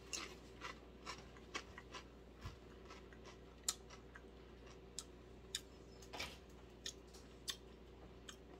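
A tortilla chip being chewed: faint, irregular crunches, about a dozen in all.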